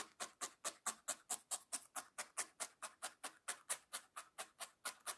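A felting needle stabbed steadily into wool on a foam felting pad, an even rhythm of short strokes about four to five a second.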